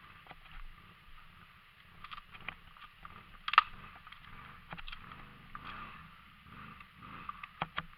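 ATV running quietly, with scattered clicks and knocks; one sharp knock about three and a half seconds in.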